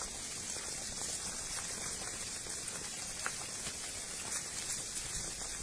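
Rockfall: a steady rushing hiss with many small clicks and knocks, as stones and gravel clatter down a scree slope.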